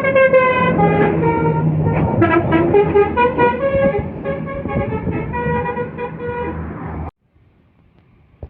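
Tour bus's basuri telolet horn playing a fast melody, several horn tones sounding together and changing note quickly, over the low rumble of the bus. It cuts off suddenly near the end, leaving faint wind and traffic noise.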